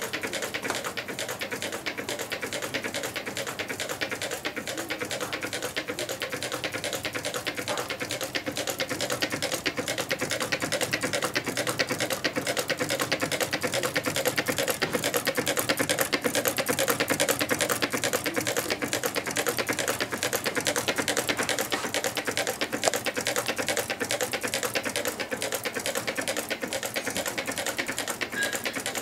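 Meccano-built twin-cylinder Stirling engine running, a rapid, steady mechanical clicking as its displacers land at each end of their travel, a sign that it is running at full performance. The clicking grows a little louder midway.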